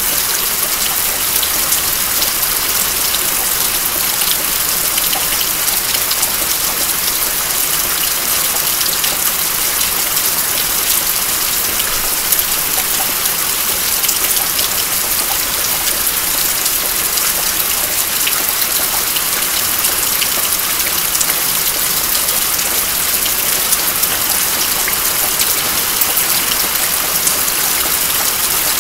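Steady rain falling, with water dripping off a house's roof edge: an even hiss sprinkled with many small drop ticks.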